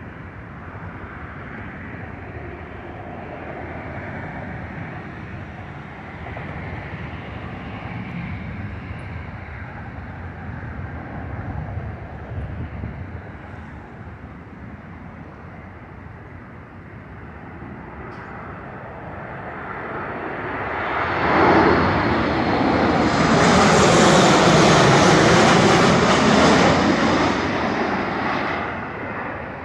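Boeing 737 MAX 8 airliner on final approach passing low overhead, its CFM LEAP-1B turbofan engines heard as a low distant rumble that swells about two-thirds of the way through into a loud rushing whoosh with a sweeping, swirling tone as it passes, then starts to fade near the end.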